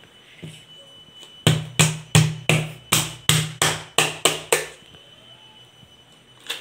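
Electric mixer grinder run in short pulses, about ten quick bursts roughly three a second starting about a second and a half in, blending moong dal and water into batter.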